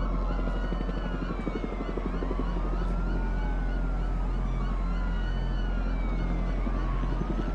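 Emergency-vehicle sirens wailing, several overlapping, their pitch rising and falling slowly, over a steady low rumble with a rapid flutter.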